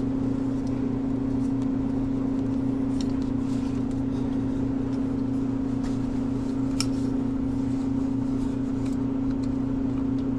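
Steady low electrical or machine hum, with a few faint clicks from parts being handled.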